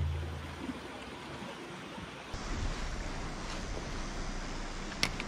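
Steady rush of water with some wind on the microphone: shore water at a seaside rock pool, then a small shallow river flowing, the sound changing a little over two seconds in. A deep booming hit dies away in the first second, and a short click comes near the end.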